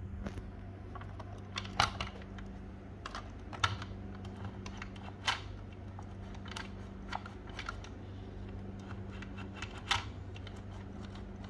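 Irregular light clicks and taps of hard plastic as a WPL C24 RC crawler is handled and turned over, with a few sharper clicks about two seconds in, near four and five seconds, and near the end. A steady low hum runs underneath.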